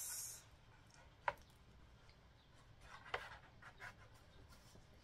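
Faint paper handling as a sketchbook page is turned: a soft tap about a second in, then short rustles of the page around three seconds in.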